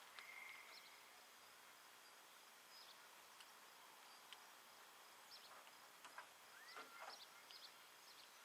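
Near silence: faint outdoor background hiss with a few short, faint chirps and ticks scattered through it.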